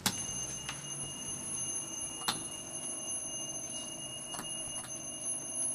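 Doorbell held down, ringing one unbroken, steady, high tone, with a few faint clicks along the way.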